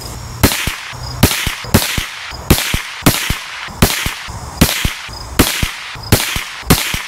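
A string of about ten .22 LR rifle shots from a Tikka T1X firing CCI Mini-Mag 36-grain hollow points. The shots are sharp and evenly paced, roughly one every three-quarters of a second.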